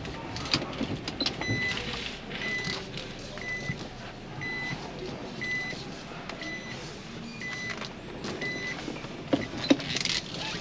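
A car's reverse-gear warning beeping in the cabin: eight short, high, evenly spaced beeps about one a second, over the low hum of the idling car, as it backs into a parking spot. A couple of sharp knocks near the end.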